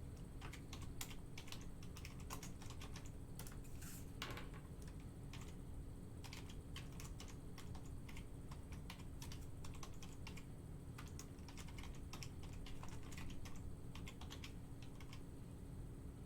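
Typing on a computer keyboard: quick, irregular runs of keystrokes, fairly faint, over a low steady hum.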